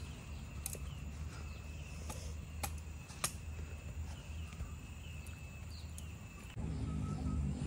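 Outdoor forest ambience: a steady high insect drone with faint chirps over a low rumble, broken by a few sharp clicks or taps. About six and a half seconds in, a louder low droning hum starts abruptly.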